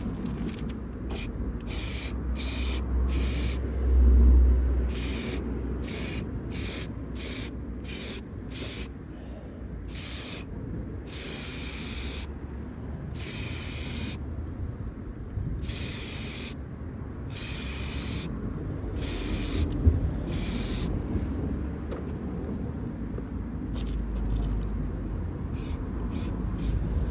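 Aerosol can of clear lacquer spraying in a series of hissing bursts, some short, some a second or more long, as a coat is laid on. A low rumble runs underneath, swelling briefly about four seconds in.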